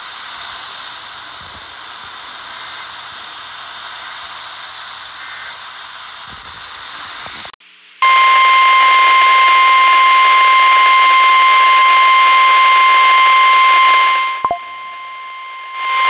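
Hiss and static from a portable radio receiver after a broadcast ends, cutting off suddenly about halfway through. Then the NOAA Weather Radio 1050 Hz warning alarm tone starts: a loud, steady, single-pitched beep that signals a warning message is about to follow. It briefly drops in level near the end.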